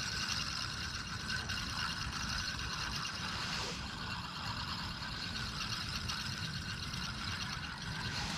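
Daiwa Certate 4000 spinning reel being cranked steadily, its gears making a continuous fine whir over a low rumble.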